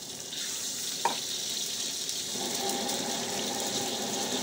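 Egg frying in hot oil in a wok, a steady sizzle that gets louder about half a second in. One sharp knock comes about a second in, and a thin steady tone joins the sizzle just after halfway.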